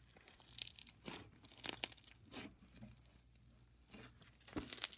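Brown snow fizz slime being kneaded and stretched by hand, giving irregular crackling and sizzly pops, with the densest crackles about a second and a half in and again near the end.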